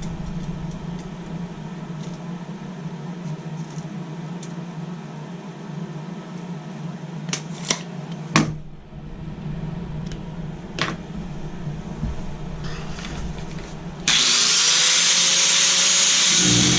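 A few sharp metal clinks as pieces of threaded rod are handled. About fourteen seconds in, a grinder starts with a rising whine and then runs loudly, cutting through the threaded rod.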